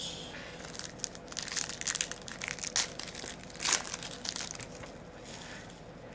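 Wrapper of an Upper Deck Series 2 hockey card pack crinkling as it is torn open and crumpled by hand: a dense run of crackles from about half a second in, loudest near the middle, dying away after about four seconds.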